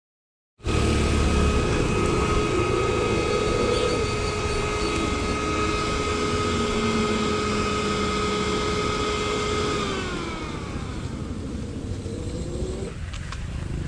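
Ather 450X electric scooter being ridden, with a steady high whine over wind and tyre noise, starting about half a second in. Around ten seconds in the whine glides down in pitch and fades as the scooter slows. It is a common sound for this scooter.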